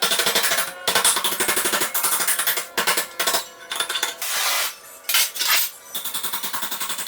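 Rapid metallic clanking and tapping as a piece of steel flat bar is bent into a cable-hook bracket, with a quicker run of regular taps near the end.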